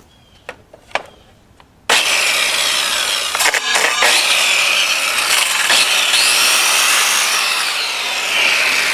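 A power saw cutting a plywood board at a marked line. It starts abruptly about two seconds in and runs steadily, its whine wavering in pitch under the load. A few light clicks of handling come before it.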